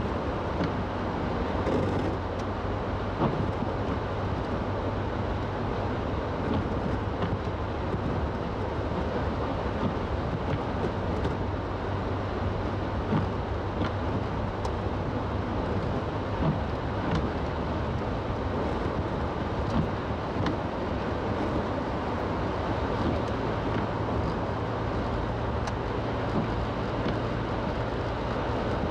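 Road noise heard from inside a car driving on a wet, slushy highway: a steady low drone of engine and tyres under an even hiss, with a few faint ticks.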